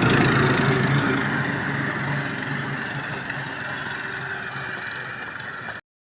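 An engine running steadily, slowly getting quieter, then cutting off suddenly near the end.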